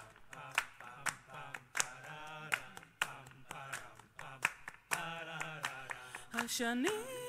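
Band members clapping hands in a steady beat, about one clap every three-quarters of a second, under voices singing without instruments. Near the end a woman's voice slides up into a held note.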